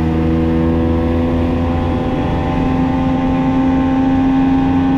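70 hp outboard motor running at cruising speed, pushing the small boat along under way. It is a steady engine note whose pitch creeps slightly upward.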